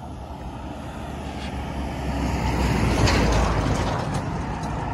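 A road vehicle driving past on the adjacent road, its noise building to a peak about three seconds in and then fading.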